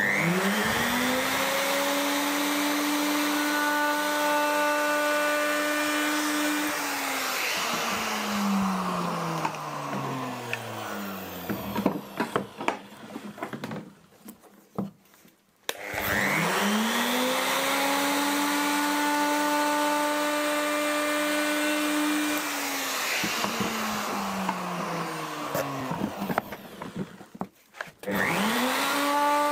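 A JCB half-inch plunge router spins up with a rising whine, runs steadily while cutting a corner of an end-grain cutting board, then winds down with a falling pitch. This happens twice, with a short quiet gap of handling clicks between the runs, and the router starts up a third time near the end.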